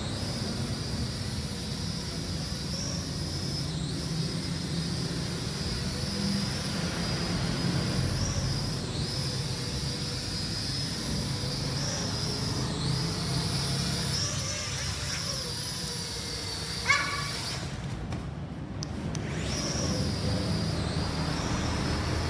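Small toy quadcopter drone with four tiny propellers whining in flight, the high pitch wavering up and down as its motors speed up and slow down. Near the end a short sharp squeak is followed by the whine cutting out for about a second and a half before it starts again.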